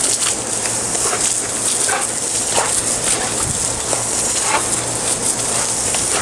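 Garden-hose water spraying onto wet concrete with a steady hiss, while a dog snaps at the stream and gives a few short whimpers and yips.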